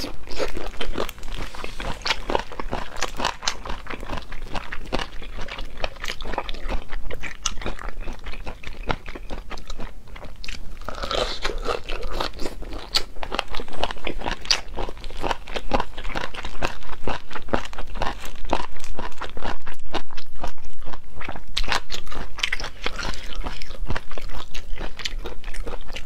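Close-miked chewing of deboned chicken feet: a dense run of rapid, crisp crunches and bites.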